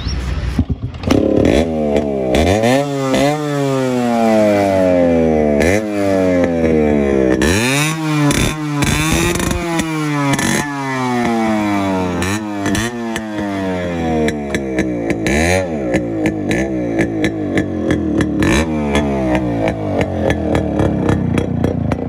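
Yamaha RX-series two-stroke single-cylinder motorcycle catching about a second in, then revved again and again, each rev rising and falling in pitch over about a second. It runs through two silencers with no mufflers, which makes it very loud. Near the end it settles to a lower, steady run with a rapid crackle.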